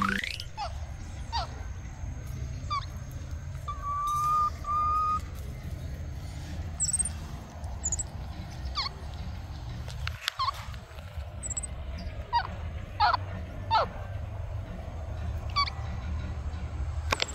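Short, high whistled animal calls, each falling quickly in pitch and coming every second or so, with one held whistle about four seconds in and a few very high chirps, over a steady low rumble. A rising swoosh of a transition effect opens it.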